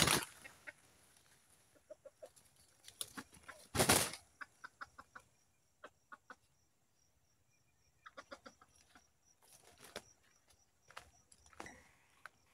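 Red junglefowl clucking in short, scattered runs of soft notes, with a brief rustling burst just before four seconds in.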